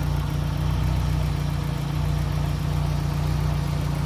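Fiat Palio 8v engine idling steadily, its newly replaced water pump running without the drone the old worn pump made.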